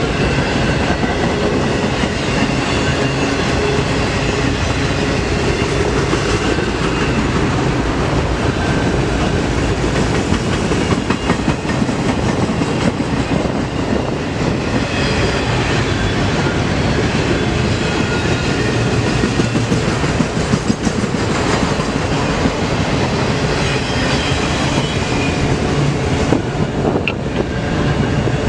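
CSX manifest freight train's cars rolling past, wheels clacking over the rail joints over a steady rumble.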